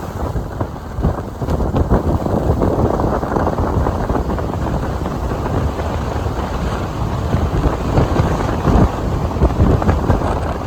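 Wind buffeting the camera microphone, a loud rumbling rush with irregular gusty surges.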